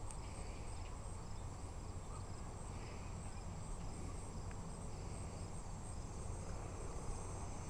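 Steady high-pitched insect chirping in an even, fast pulsing rhythm, likely crickets, over a low steady outdoor rumble.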